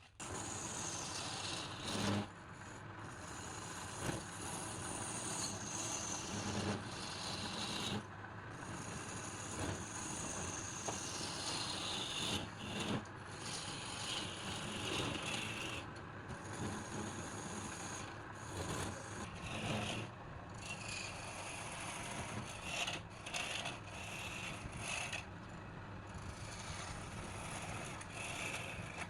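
Wood lathe running, with a turning tool scraping against the spinning wood. The contact goes on with a few short breaks, and a high pitch slides slowly downward at times.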